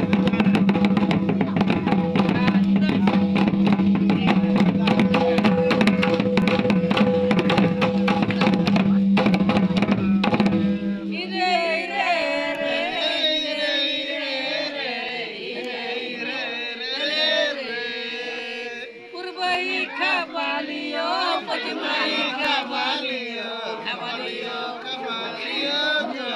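Fast, dense beating on hand-played barrel drums and a stick-beaten kettle drum. About ten seconds in the drumming breaks off and men's voices take over, singing or chanting a wavering melody.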